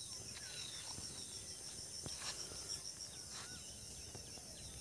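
Insects chirring in a high, fast, evenly pulsing drone, with short bird chirps now and then and a couple of sharp clicks about two and three and a half seconds in.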